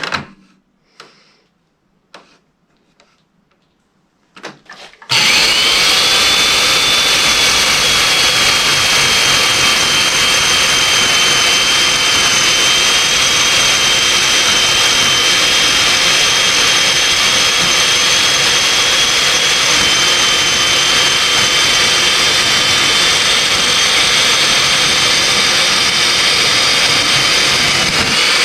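A few light knocks, then about five seconds in a Makita 7104L chain mortiser's electric motor spins up with a quickly rising whine and runs steadily while its cutting chain plunges into wood to cut a mortise.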